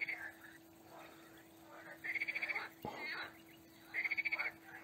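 Frogs calling: a short, rapid rattling croak repeated about every two seconds, three times, over a faint steady hum.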